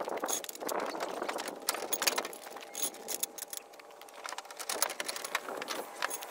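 Steel tent-frame tubes clinking and clanking against each other as they are handled and sorted, some knocks leaving a short metallic ring.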